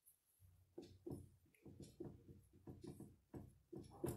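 Dry-erase marker writing on a whiteboard: a run of short, faint strokes.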